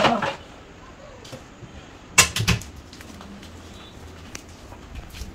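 Kitchen cabinet being handled as a serving tray is taken out from behind its glass doors: a quick cluster of sharp knocks and clicks a little over two seconds in, then a few faint ticks over low room tone.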